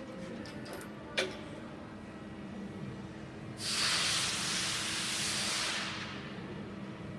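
A sharp click, then about two seconds later a steady hiss lasting about two and a half seconds that fades out at the end.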